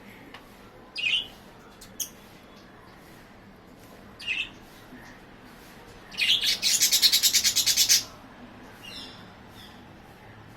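Pet budgerigars chirping: a few short high chirps, then a fast rattling chatter lasting about two seconds a little past the middle, then a few faint chirps.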